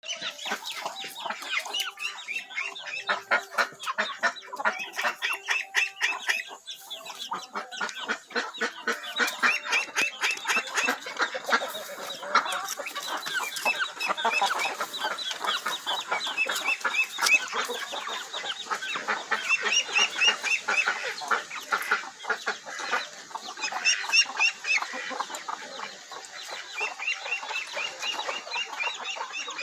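A flock of chickens clucking in rapid, overlapping calls, many birds at once.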